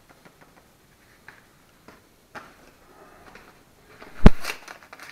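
Faint ticks and taps of dried seasoning being shaken from a cardboard box into a bowl, then a single sharp knock about four seconds in, the loudest sound.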